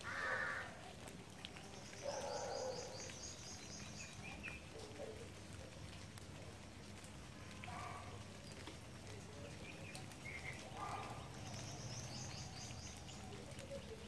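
Outdoor ambience with animal calls: several short calls scattered through, and a rapid, high, pulsing trill heard twice.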